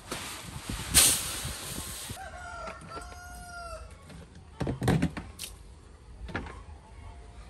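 A rooster crowing: one drawn-out, arching call a little over two seconds in. A burst of hiss with a sharp knock about a second in, and a few thumps near the middle.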